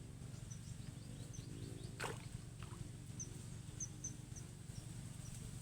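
Outdoor ambience: a steady low pulsing rumble, with short high chirps scattered throughout and one sharp click about two seconds in.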